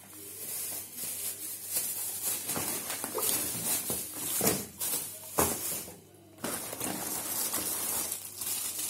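Clear plastic shoe wrappers rustling and crinkling as shoes are handled, with short clicks and knocks of cardboard shoe boxes being moved; the noise drops for a moment about six seconds in.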